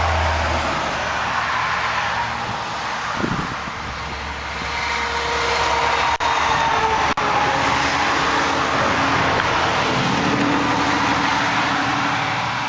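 Steady road traffic from a nearby highway, with passing vehicles rising and fading, mixed with wind noise on the microphone.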